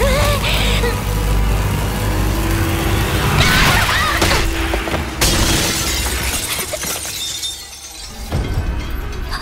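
Fantasy magic-spell sound effects: a heavy low rumbling, a swelling burst, then a sharp shattering crash about five seconds in that dies away.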